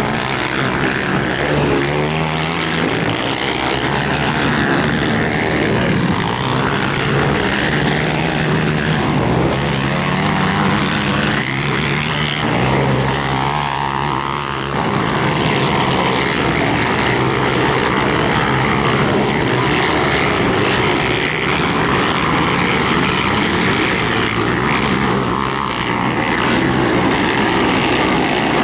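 Several racing ATV quads' engines revving at once, their pitch rising and falling as the riders accelerate around the dirt track, merging into a continuous loud engine noise.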